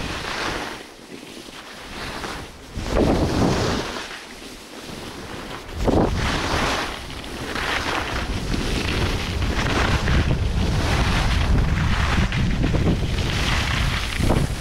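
Skis sliding and scraping over packed snow, a rushing swish that surges about three and six seconds in and then runs steadily, with wind buffeting the microphone.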